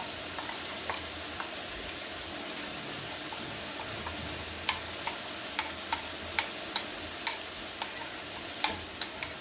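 Chicken pieces frying in hot oil: a steady sizzle, with sharp, irregular pops starting about halfway through.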